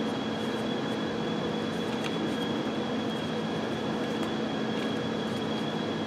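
Steady hum and rush of a ventilation fan, with a faint high whine over it and a few faint clicks from parts being handled.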